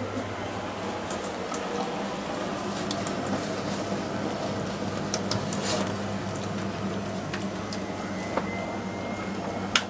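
Water trickling steadily from a drain valve and hose into a stainless steel sink as a dog-washing tub empties, with a steady low hum underneath. A sharp click near the end.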